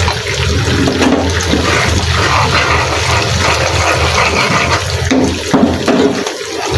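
Tomato-based sauce sizzling and bubbling in hot oil in a frying pan. A metal spoon stirs it partway through.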